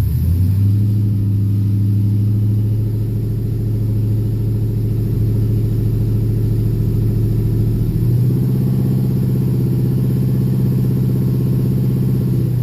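Ford Mustang SN95 4.6 V8 idling steadily, its idle speed stepping up slightly about eight seconds in. The idle is unsettled, with an idle air control code stored.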